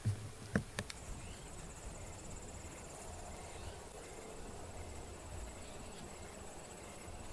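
Insects trilling steadily in dry prairie grass, a thin high-pitched pulsing trill that sets in about a second in. A few sharp clicks of the camera being handled come first.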